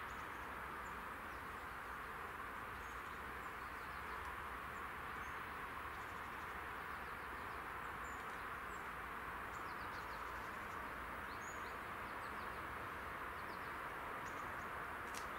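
Quiet outdoor ambience: a steady background hiss with scattered faint, short bird chirps.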